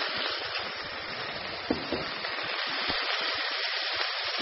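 Hot oil and browned masala in a cooking pot sizzling steadily as yogurt is added, with steam hissing off the pot and a few small crackles.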